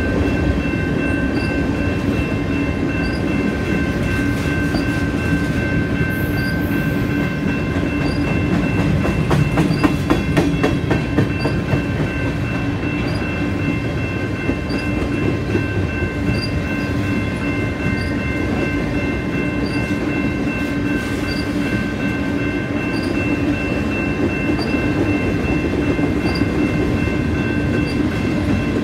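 Freight train of covered hopper cars rolling past: a steady rumble of steel wheels on rail, with steady high whining tones over it. A quicker run of wheel clacks comes about nine to eleven seconds in.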